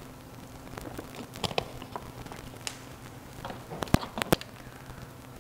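Plastic water bottle crinkling and clicking as it is handled and drunk from close to a clip-on microphone, with the sharpest knocks about four seconds in as it is set down. A steady low hum runs underneath.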